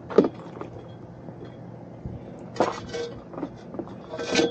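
A metal mast pipe being handled, clanking and clinking: a sharp knock just after the start, a few more about two and a half seconds in, and another near the end that leaves a short metallic ring.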